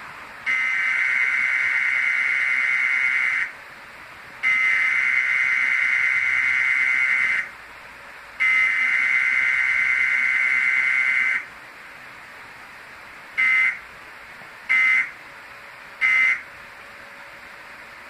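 Emergency Alert System SAME data bursts played through a TV speaker during a cable Required Weekly Test: three long buzzy warbling bursts about a second apart, the message header, then three short bursts of the same buzz, the end-of-message code. Faint hiss fills the gaps.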